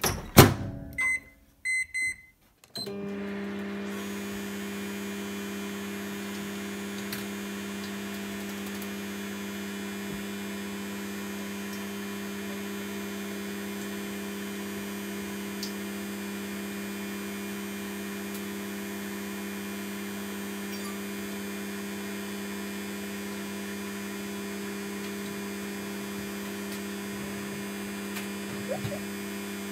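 De'Longhi microwave oven: its door shut with a knock, a few keypad beeps, then about three seconds in the oven starts and runs with a steady hum.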